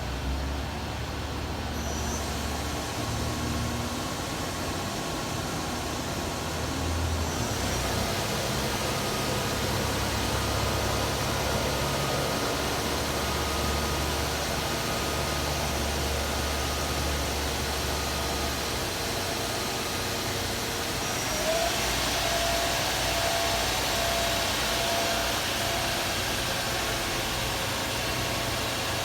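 Doosan Lynx 300 CNC lathe running with a steady machine hum. The sound grows brighter about seven seconds in, and about three-quarters of the way through a short rising whine settles into a steady tone with more hiss.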